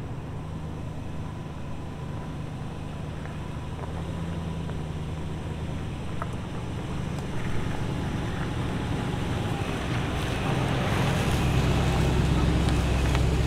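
First-generation Toyota Sequoia's 4.7-litre V8 running at low speed on a dirt forest track, a low steady engine hum that grows slowly louder as the truck approaches and is loudest near the end as it rolls close past, with its tyres rolling over dirt and dry leaves.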